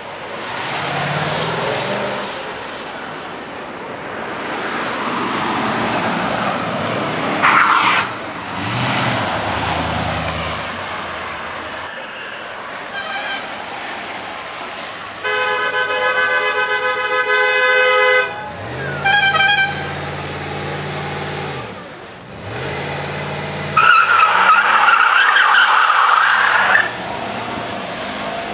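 Cars driving past with engines running and revving, and car horns honking: one long horn blast about halfway through and a louder honk near the end.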